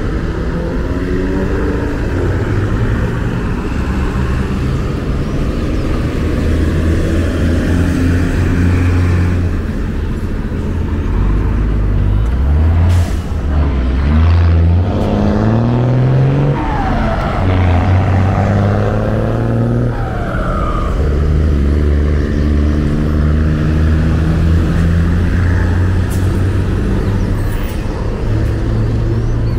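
Busy street traffic: vehicle engines idling and running steadily, with several revving up and pulling away, their pitch rising, about halfway through.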